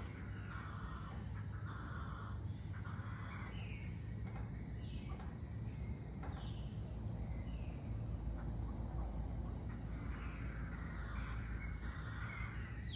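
Pre-dawn outdoor ambience: a steady high-pitched trilling of insects, with repeated bird calls in short groups near the start and again near the end, over a low steady hum.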